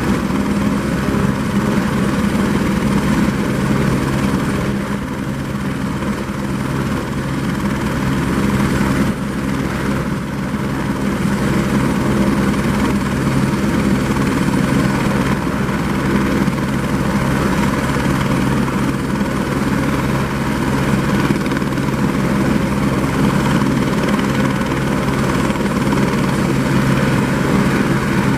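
Eurocopter AS350 B3 helicopter running, its single Arriel turboshaft whining over the rapid chop of the main rotor, steady throughout apart from a slight dip in loudness about five seconds in.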